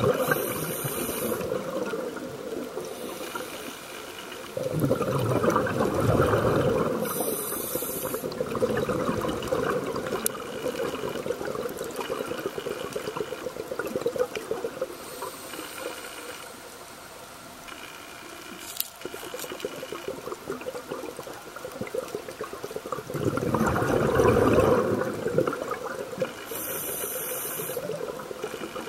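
Scuba regulator breathing underwater: short hisses as air is drawn through the regulator, and two long rumbling gushes of exhaled bubbles, about five and twenty-three seconds in. A steady crackle runs underneath.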